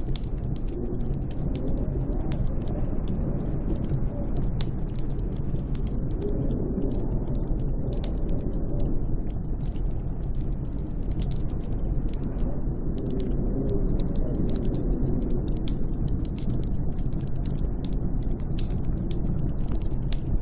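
Steady snowstorm wind with a deep rumble and slow swells, with many small irregular crackles and clicks over it.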